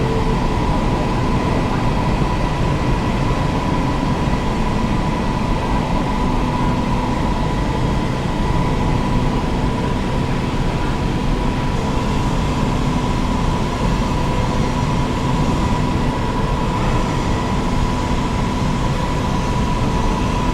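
Manual metal lathe running steadily: even machine noise with a constant hum.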